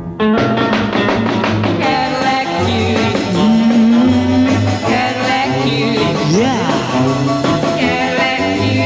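Rock-and-roll music with a bass line of short repeated notes.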